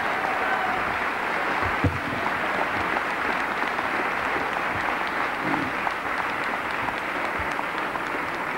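A crowd applauding steadily, easing off slightly near the end.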